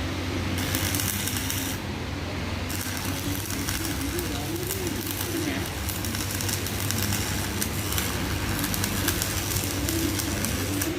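Electric arc welding: a continuous crackling sizzle from the arc over a steady electrical hum. It stops briefly about two seconds in, then is struck again and runs on.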